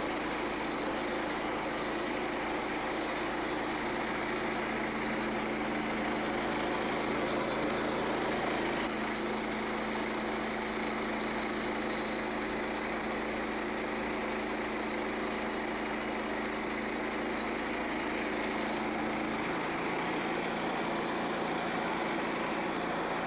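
An engine running steadily at an even level; its note changes about three-quarters of the way through.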